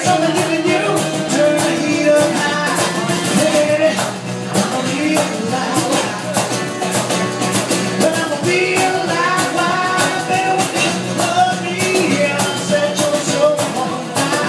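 Live acoustic performance: a strummed steel-string acoustic guitar and a man singing, with a cajon keeping a steady beat.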